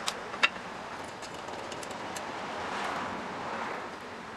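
Two sharp metal clicks close together near the start as a locking handle is fitted onto the table stud of a band saw. Faint ticks and a soft hiss of handling noise follow.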